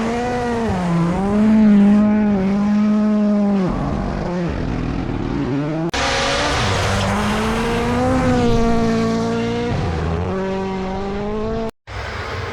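WRC rally car engines at speed, revs rising and falling with throttle lifts and gear changes. The sound cuts abruptly about halfway through and drops out briefly near the end, between clips.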